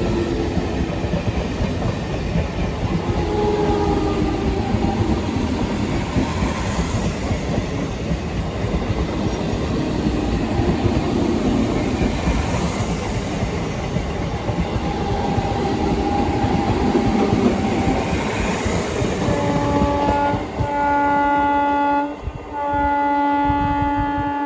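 Massagram local train pulling into the station, a steady rumble of wheels on the track. Near the end the train's horn sounds in three blasts, the last one the longest.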